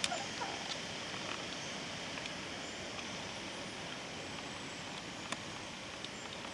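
Steady wind noise through swaying forest trees, with a few faint, scattered sharp taps from a woodpecker chiselling out a nest hole.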